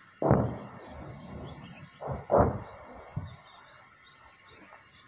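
Distant artillery shell explosions: a heavy boom about a quarter second in that rumbles away over about a second, then a quick double boom around two seconds in, the loudest, and a fainter one after it. Birds chirp faintly in the background.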